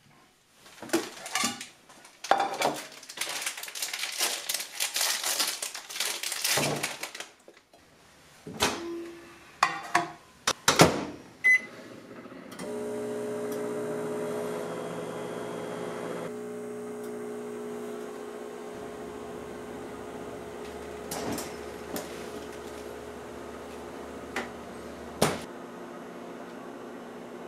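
Kitchen clatter of a mug and dishes being handled, a few clicks and one short beep, then a microwave oven running with a steady hum for the rest of the time, with a couple of faint clicks.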